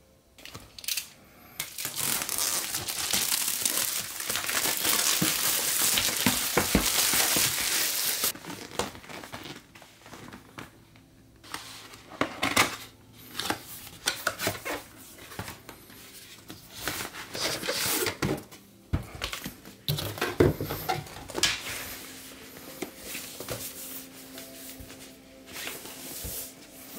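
Plastic wrapping crinkling and tearing off a cardboard product box for several seconds, followed by scattered rustles, clicks and light knocks of the box and its contents being handled.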